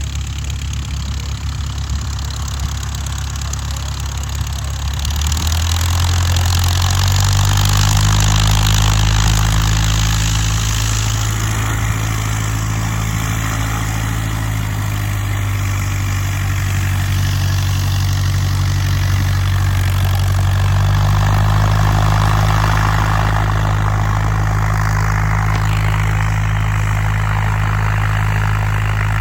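An engine running steadily, growing louder about five seconds in and holding at that level, with a smaller change in its note near twenty seconds.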